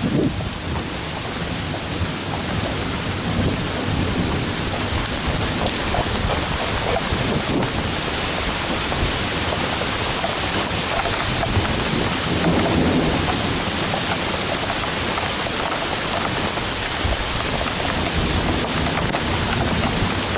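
Heavy rain pouring steadily, with drops striking the camera.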